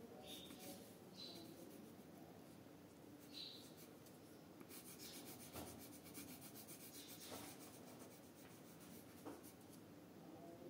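Faint scratching of a red coloured pencil shading on paper: a few short separate strokes, then a quick run of rapid back-and-forth strokes about halfway through.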